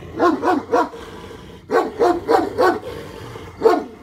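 Large dog barking: three quick barks, then a run of four, then a single bark near the end.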